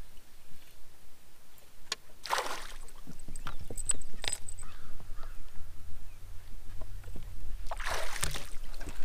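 A hooked bass splashing and thrashing at the surface beside the boat in two bursts, about two seconds in and again near the end, with small knocks and clicks on the boat deck between.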